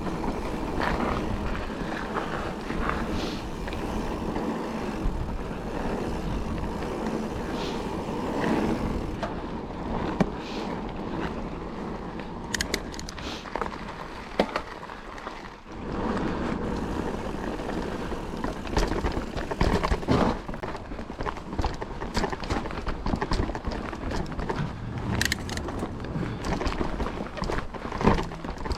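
Mountain bike ridden over a dry, loose dirt trail: steady tyre noise with frequent sharp clicks and rattles from stones and the bike.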